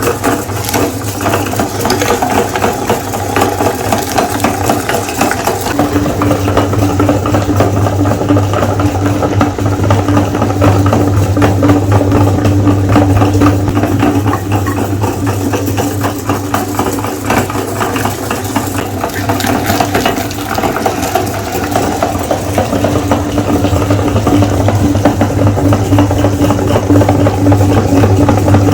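Electric meat grinder running with a steady motor hum and a rattle as it grinds ice cream bars. Its hum grows stronger about six seconds in and again past twenty seconds.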